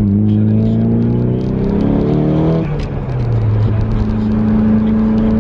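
Nissan 180SX's SR20DET turbo four-cylinder through a new single 3-inch stainless steel exhaust, a deep rumble. The note climbs in pitch for about two and a half seconds, drops abruptly, then holds fairly steady.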